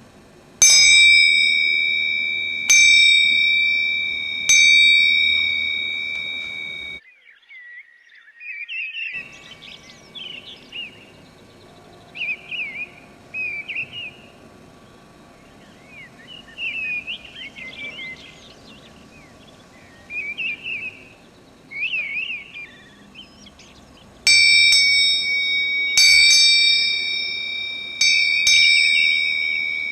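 Small cast bell-bronze handbell (80% copper, 20% tin) rung three times about two seconds apart, each strike ringing on with a clear high tone and slowly dying away. A thrush then sings in short chirping phrases, and near the end the bell is rung four more times, the last two in quick succession.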